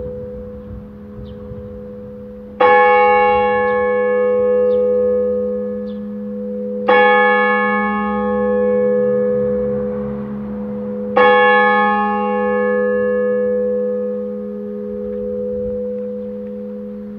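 Church bell tolling slowly: three strikes about four seconds apart. Each strike rings on and fades over a steady low hum left by the earlier strokes.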